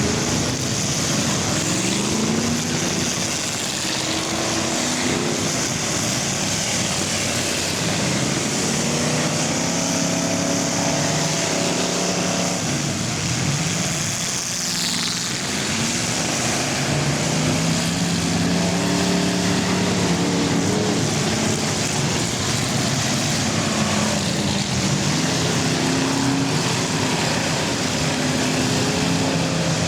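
Several full-size cars racing together, their engines running hard at once, with engine pitches rising and falling as they accelerate and pass.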